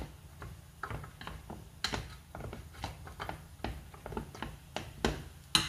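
Wooden chopsticks stirring steamed sticky rice in a metal steamer pot: irregular light clicks and knocks as the chopsticks strike the pot, with a sharper knock near the end.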